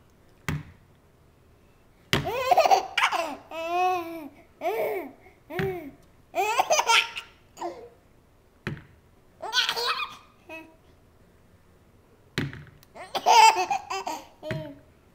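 A baby laughing in a run of separate bursts with short pauses between them, some bursts with a quickly wavering pitch.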